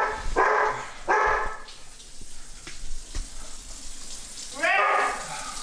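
A dog barking: a quick run of three or four barks in the first second and a half, then one more near the end.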